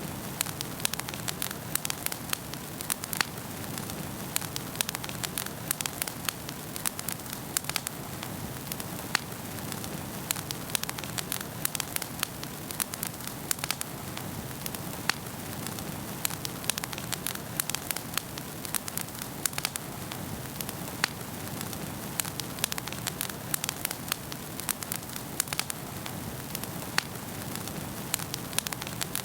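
Wood fire burning in a fireplace, with a steady low rush and frequent sharp, irregular crackles and pops.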